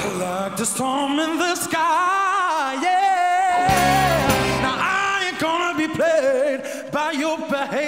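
Male lead singer holding long, wavering notes with heavy vibrato, without clear words, over a live band backing. A full band hit with strong bass comes in about four seconds in.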